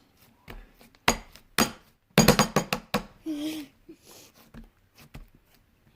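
Slime being worked in the hands, giving sharp popping clicks as trapped air bursts: two single pops about a second in, then a quick run of pops just after two seconds.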